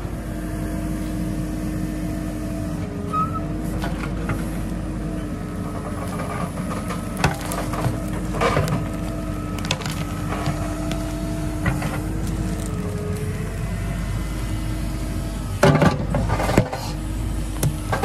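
Backhoe loader's diesel engine running steadily while it digs, its note shifting slightly a few times as the hydraulics work. The bucket scrapes and knocks against soil and roots, with a cluster of louder knocks near the end.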